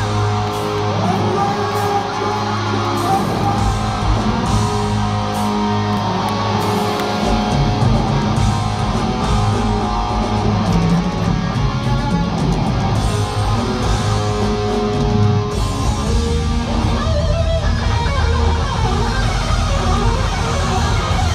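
Glam-metal band playing live through a large amphitheater PA, with electric guitar leading the loud rock music, recorded from within the crowd. The deep bass and kick drum fill out about seven seconds in.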